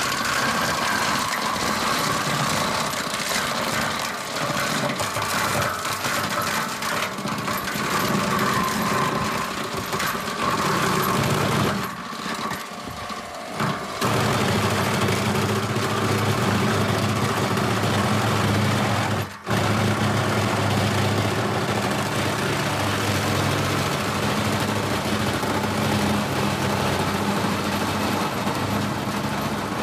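Tractor-mounted stone crusher at work: rocks clattering and cracking in the crusher over the tractor engine. After a short lull about twelve seconds in, a steady engine-and-crusher hum dominates, broken by a brief dropout about twenty seconds in.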